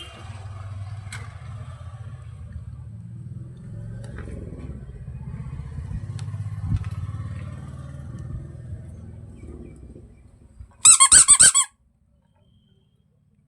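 Low, rattling rumble of a toy vehicle for about ten seconds, fading near the end. Then a loud burst of high squeaky chirps, under a second long, stops abruptly.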